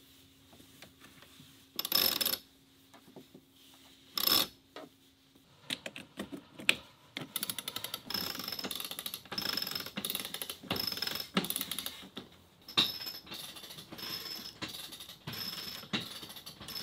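A sailboat winch being cranked with a winch handle to haul in a line. From about seven seconds in, its ratchet pawls click rapidly in repeated short bursts, one burst per stroke of the handle, after two short louder noises earlier on.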